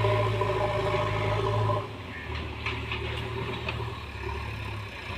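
JCB 3DX backhoe loader's four-cylinder diesel engine running steadily, then dropping to a lower, quieter note about two seconds in, with a few light clicks.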